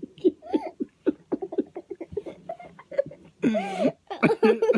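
A man and a young child laughing and giggling in short, choppy bursts, with a high squeal from the child about three and a half seconds in.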